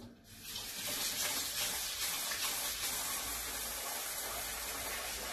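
Kitchen tap running steadily into a metal pot, rinsing rice before cooking. The flow comes on within the first second and then holds even.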